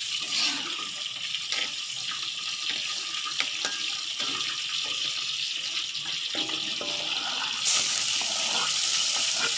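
Margarine sizzling with a steady hiss as it melts in a hot wok, with a few light scrapes of a metal spatula. Near the end chopped spring onion and garlic are tipped in and the sizzle turns louder.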